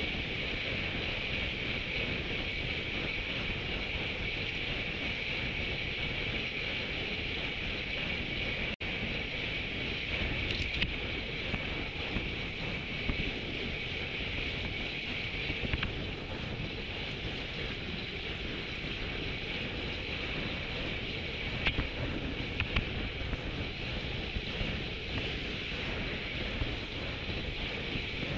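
Steady rush of wind and road noise on the camera microphone of a road bike riding at about 40 km/h, with a few faint clicks.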